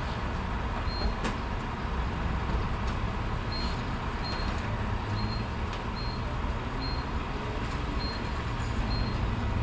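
Gas station ambience: a steady low rumble of idling vehicle engines with a constant hum, while short high beeps repeat about once a second and a few faint clicks sound.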